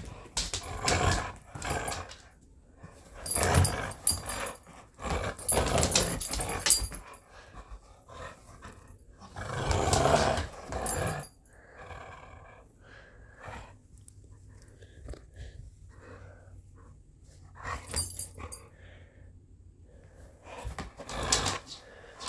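A dog growling in play, in several bursts with quieter gaps between them.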